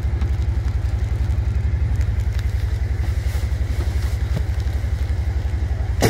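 Kawasaki Teryx side-by-side's engine idling with a steady, even low pulse.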